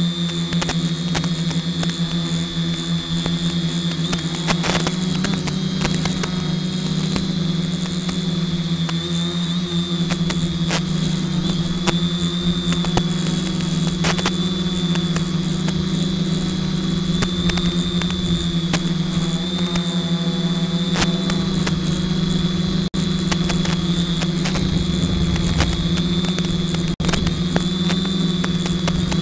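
Multirotor drone's electric motors and propellers holding a steady hum while it hovers and creeps along in loiter mode, with two brief dropouts near the end.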